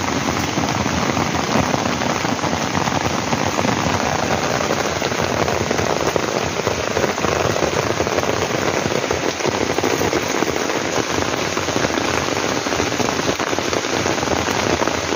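Heavy rain falling steadily on a tent, a dense hiss of drops with many sharp close hits.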